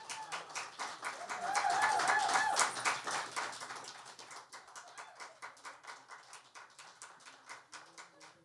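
Small audience applauding, loudest about two seconds in when one person whoops, then thinning to scattered claps.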